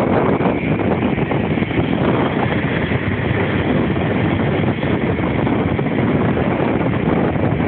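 Motor scooter running steadily while riding along a street, with wind on the microphone, a dense and even noise.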